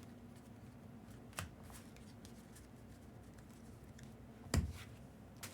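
Trading cards being handled and flipped through, with a few short sharp card snaps; the loudest comes about four and a half seconds in.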